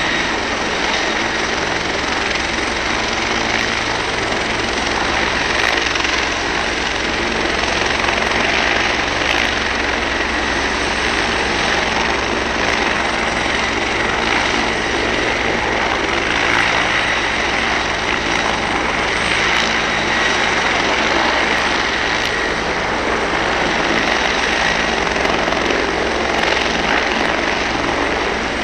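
A fire brigade helicopter running on the ground before liftoff: steady turbine engine and rotor noise, with a faint steady high whine over it.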